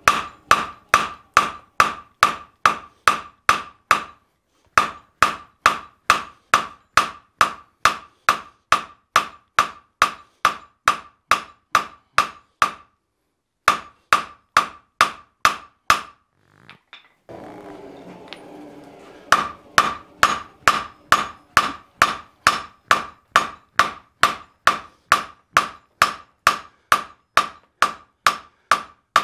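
Hand hammer striking red-hot wrought iron on an anvil in a fast, even rhythm of about two and a half blows a second, each blow ringing off the anvil. There are a few short pauses between runs of blows.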